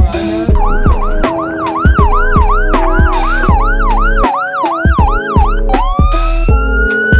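Electronic emergency-vehicle siren in a fast yelp, sweeping up and down a little over twice a second, then switching to a long rising wail near the end, over background music with a steady beat.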